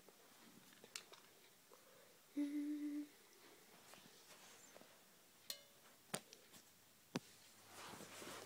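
A single short, steady hummed note about two and a half seconds in, with a few sharp clicks and a soft rustle later on.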